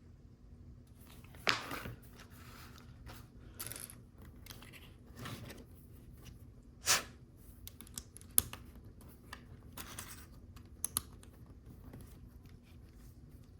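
Handling small Lego pieces and a sticker sheet: scattered light clicks and a few short crinkly rustles, the loudest about a second and a half in and again about seven seconds in.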